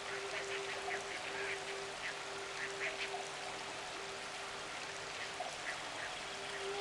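Ambient new-age music: a held synth note with many short bird calls mixed into the track. The held note thins out in the middle and swells back near the end.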